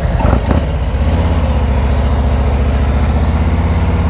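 Harley-Davidson touring motorcycle's V-twin engine idling just after being started, with an even pulsing beat. The engine note wavers for a moment in the first second, then settles into a steady idle.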